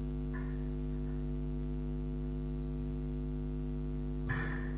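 Steady electrical mains hum with its overtones, from the recording's sound system, with a short faint sound near the end.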